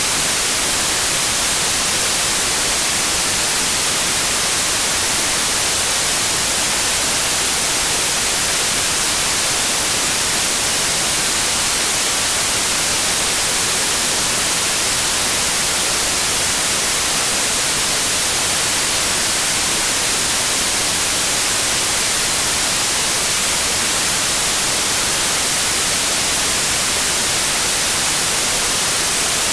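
Steady, unchanging white noise: an even hiss across all pitches, brightest in the highs.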